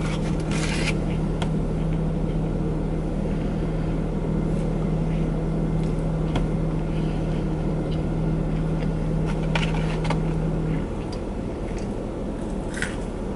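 Parked car running: a steady low hum with a steady tone that drops out about eleven seconds in. A few short, faint noises from eating sit over it.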